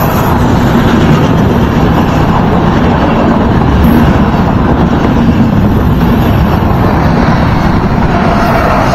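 A Trenitalia Intercity train's coaches passing at speed close by: a loud, steady rumble and rush of wheels on the rails.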